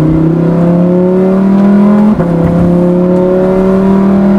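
Lamborghini Huracán's 5.2-litre naturally aspirated V10 accelerating hard, its pitch climbing steadily, then dropping with a quick upshift of the dual-clutch gearbox about two seconds in before climbing again.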